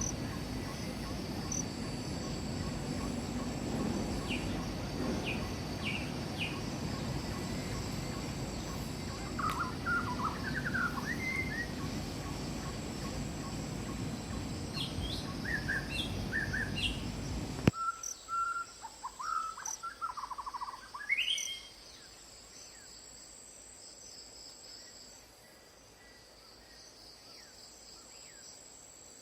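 Wild birds calling with short chirps and whistled glides over a steady high-pitched insect trill. A low background noise cuts off abruptly about two thirds of the way through; after a last few calls only the fainter insect trill remains.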